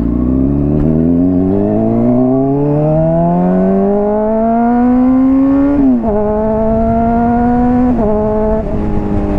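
Honda CBR600RR inline-four with a slip-on exhaust accelerating hard. Its pitch rises steadily for about six seconds, then drops sharply at two quick upshifts about six and eight seconds in, then holds near level.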